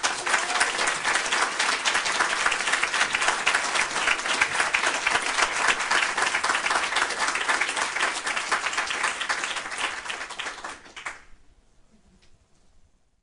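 An audience of a few dozen people applauding steadily, many hands clapping at once; the applause cuts off suddenly about eleven seconds in.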